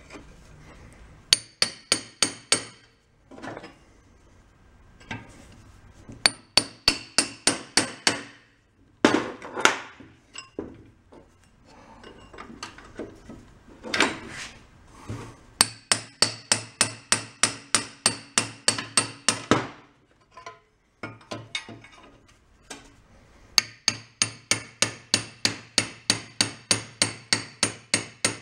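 Ball-peen hammer striking a steel drift against the rusted-in crankshaft of a small single-cylinder engine, trying to drive it out. The strikes come in four quick runs of about three to four blows a second, each with a metallic ring. Between the runs there is some scraping of metal.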